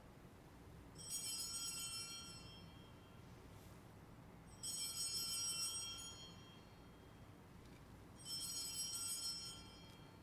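Altar (sanctus) bell rung three times, each ring fading away over about two seconds before the next, marking the elevation of the consecrated host after the words of institution.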